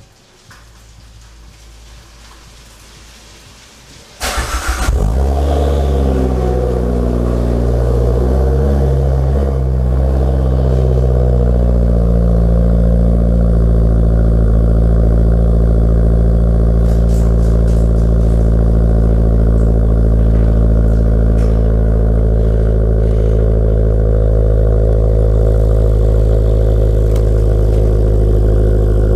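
Fiat 500 Abarth's turbocharged 1.4-litre four-cylinder, fitted with a catless downpipe and a twin-muffler cat-back exhaust, heard from inside the cabin. It cranks and starts about four seconds in, flares up, then settles into a steady fast idle around 1,800 rpm.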